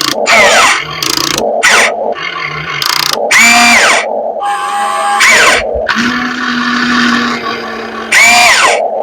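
RC excavator's electric motors whining over a steady hum as the machine digs, with a string of short, loud bursts whose pitch slides up and then down as the arm and bucket move.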